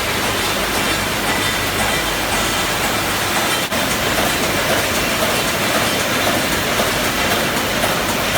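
Automatic wire mesh welding production line running: a loud, steady, dense mechanical clatter, with one brief drop about three and a half seconds in.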